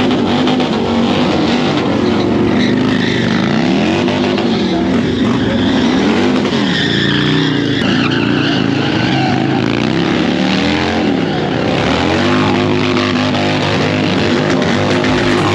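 Harley-Davidson V-twin motorcycles revving hard through burnouts and donuts. The engines rise and fall in pitch again and again over the screech of spinning rear tyres.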